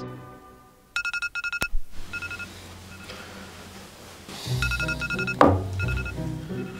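Phone alarm going off: a high electronic beep in quick repeated groups, waking a sleeper, with background music coming in about halfway through.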